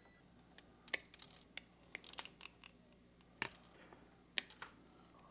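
A hand wire stripper clicking and snipping as it trims the ends of small motor lead wires. The sound is faint and made of irregular sharp clicks, with the strongest two coming about three and a half and four and a half seconds in.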